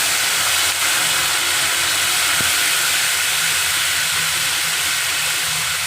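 Ground tomato paste sizzling loudly as it hits hot oil tempered with nigella seeds, a steady hiss that eases slightly near the end.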